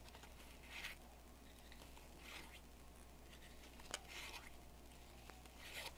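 Faint swishes of Pokémon trading cards slid one at a time off a stack by hand, four of them, about one every second and a half. A sharp click, the loudest sound, comes just before the third.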